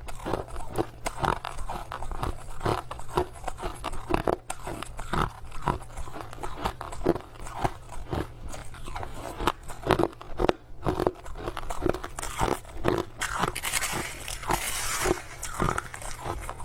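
Crushed ice being bitten and chewed close to the microphone: a dense, irregular run of crisp crunches, several a second. Near the end comes a few seconds of rustling hiss.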